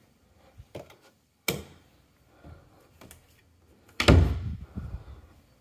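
An interior door being handled: a sharp click about a second and a half in, then a heavy thump about four seconds in as it swings shut.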